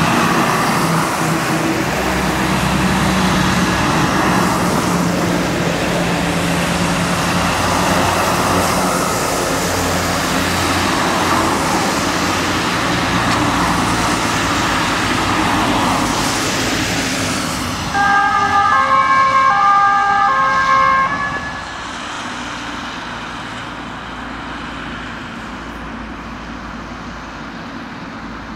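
A convoy of fire engines passing on a wet road: engines running and tyres hissing on the wet surface. About two-thirds of the way through, a two-tone siren sounds loudly for about three seconds, alternating between two pitches, then stops, and the traffic noise is quieter afterwards.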